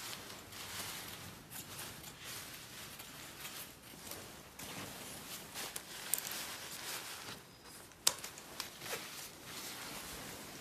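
Scissors cutting into a nylon down jacket, with the jacket's shell fabric rustling as it is handled; a couple of sharp snips about six and eight seconds in.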